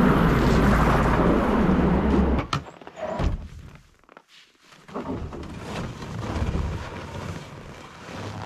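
A loud steady rushing noise for the first two seconds or so, cut off suddenly, then a few knocks. After a short lull, a home-built wooden ramp is slid out of a pickup truck's bed, scraping and knocking on the wood and metal.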